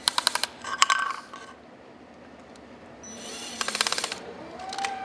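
Screwdriver tightening the screws of a gasketed cover on a metal octagon electrical box: quick runs of sharp metallic clicks, one at the start and another a little before the end, with a quieter gap between.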